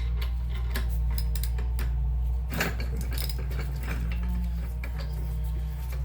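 Metal tools clinking and knocking against a Subaru Impreza's rear brake caliper bracket and its seized slide pins, in irregular light taps with one sharper knock partway through, over a steady low hum.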